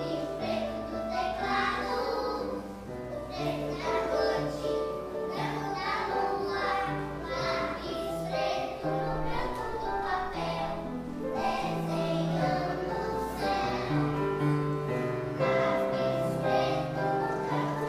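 Children's choir singing a song together, with piano accompaniment.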